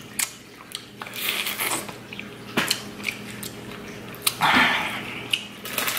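Close-miked eating: biting and chewing a fried shrimp, then fingers picking through mussel shells in sauce in a glass dish, giving clicks and short wet, crunchy bursts. Under it runs a faint steady trickle of water from an aquarium filter.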